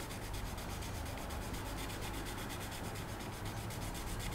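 Fine-grit (6,000) sanding pad rubbed over the painted plastic body of a model car kit in rapid, even strokes, smoothing the paint.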